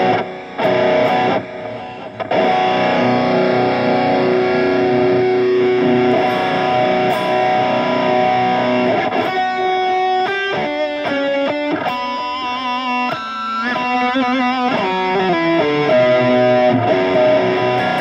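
Electric guitar played through a NuX MG-300 modelling processor on a distorted lead patch. Sustained ringing chords come first, then about nine seconds in a quick run of single notes, some wavering in pitch, ending on held notes.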